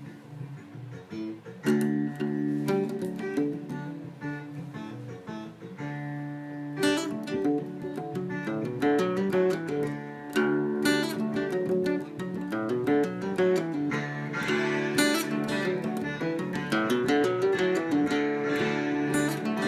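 Music led by plucked and strummed guitar, filling out into a denser arrangement about seven seconds in.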